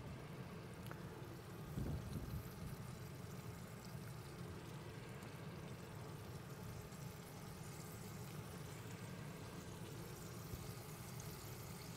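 Chicken breast pieces frying gently in vegetable oil in a stainless-steel skillet over low heat: a faint, steady sizzle. A soft knock about two seconds in.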